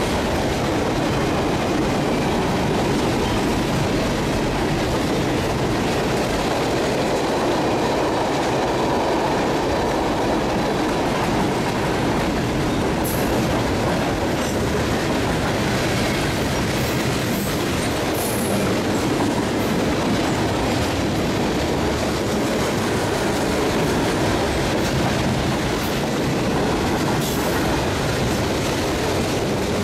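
Freight train cars rolling steadily past, wheels clacking over the rail joints, with brief high wheel squeals a few times along the way.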